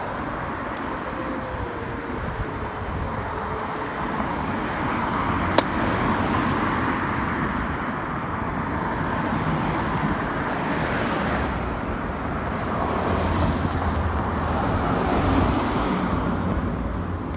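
Steady traffic and road noise while riding an electric scooter along a city street, a continuous rush with one sharp click about five and a half seconds in.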